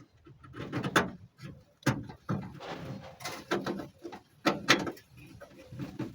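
Irregular clicks, taps and light scrapes of a screwdriver and small metal hardware as a screw is driven in to fasten a fabricated door lock rod retainer inside a car door.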